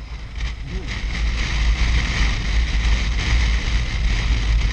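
Steady wind noise buffeting the microphone on a moving BMW R1150RT motorcycle, over a constant low rumble from the bike's boxer-twin engine and the road.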